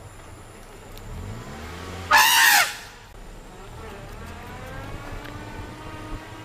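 An elephant trumpets once: a loud, brief blast about two seconds in, rising then falling in pitch. A vehicle engine hums low underneath.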